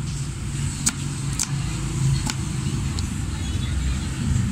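A steady low rumble, like a running vehicle, under a few sharp taps of a knife blade on a plastic cutting board as green mango is cut, about one tap a second.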